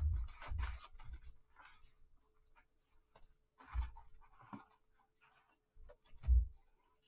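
Cardboard trading-card box being opened and handled by gloved hands: scraping and rustling of the card stock, with scattered light clicks. Two dull thumps come about four and six seconds in, the second the loudest.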